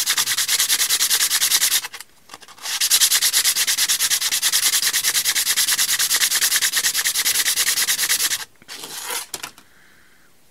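Sandpaper rubbed against a wooden ring spinning on a drill press: a loud, scratchy rasp with a fast, even pulse. It breaks off for about a second about two seconds in, starts again, and stops near the end after a short, weaker burst.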